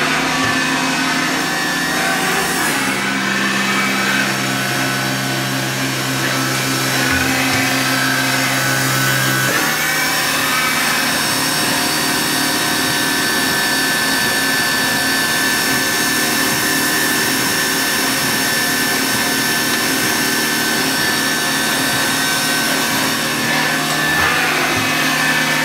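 Mori Seiki MV35 vertical machining center running a program, with a steady motor hum and a high whine from the spindle and axis drives. The low hum changes pitch about three seconds in and changes back near ten seconds, as the machine's motion changes.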